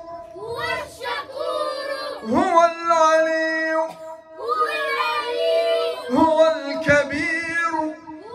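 A group of children's voices chanting together in unison, in long held notes with gliding rises between phrases.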